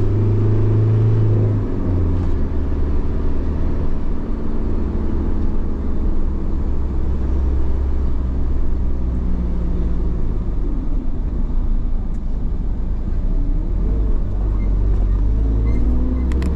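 A car driving along a road: a steady low engine hum with tyre and road noise. The engine note drops a step about two seconds in and again near the end.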